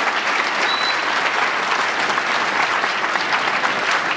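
Large audience clapping steadily: a dense, even patter of many hands.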